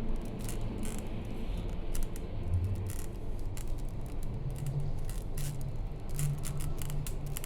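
Low droning tones that shift in pitch every second or so, overlaid with scattered irregular clicks and crackles.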